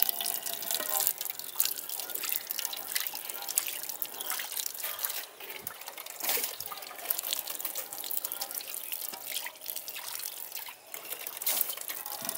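Thin, irregular trickle of water from a low-pressure tap spattering into a bowl.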